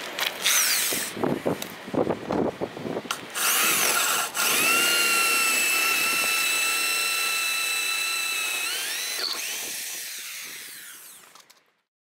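Hand-held electric drill with a twist bit boring a pilot hole through a boat's hull for a bow thruster tunnel. A few short starts and knocks come first, then a long steady whine under load. About nine seconds in the pitch rises, and the drill winds down and fades out.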